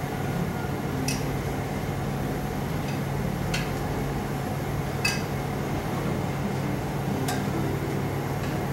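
Metal tongs clinking against a plate and frying pan as pieces of chicken are laid in: four sharp clinks a second or two apart, over a steady hiss.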